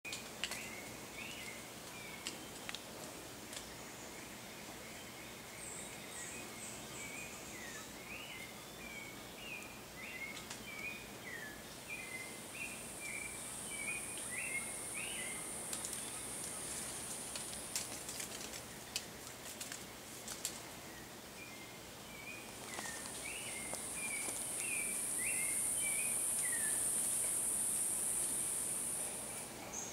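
Tropical forest ambience: a bird calls over and over in short chirping phrases, and a high, steady insect buzz comes in twice for several seconds, louder near the end. A few faint clicks or rustles sound around the middle.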